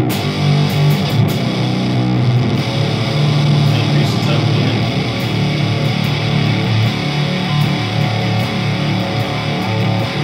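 Electric guitar played through a Meat Grinder Fuzz, a Univox Super Fuzz-style octave fuzz pedal, with its tone knob turned down to zero. Low notes ring on in thick, sustained fuzz, the sound dark and bass-heavy.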